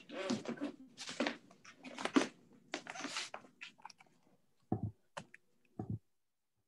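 Close crackling and rustling noise on a computer microphone, then two dull thumps about a second apart, after which the sound stops abruptly.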